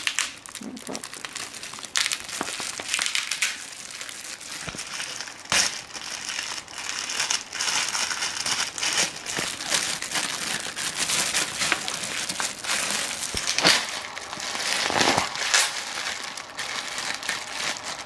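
Packaging crinkling and crackling as it is handled and pulled open, with irregular sharp crackles throughout.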